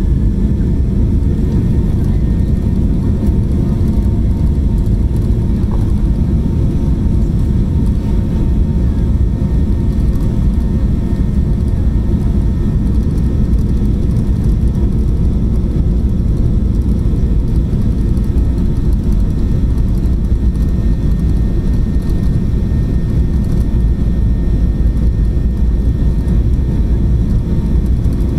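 Steady low rumble inside the cabin of a jet airliner taxiing, its engines running at low taxi thrust, with faint steady whining tones above the rumble.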